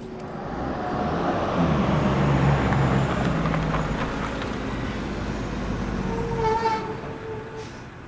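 A road vehicle passing: a rumble of engine and tyres that swells over the first couple of seconds and fades away near the end, with a brief higher tone just before it fades.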